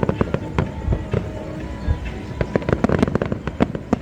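Aerial fireworks going off: a fast, irregular run of sharp bangs and crackles, densest in the second half.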